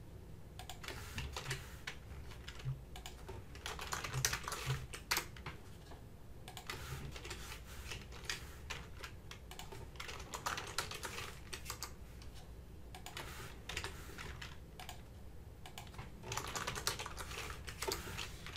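Typing on a computer keyboard, with quick runs of key clicks broken by short pauses.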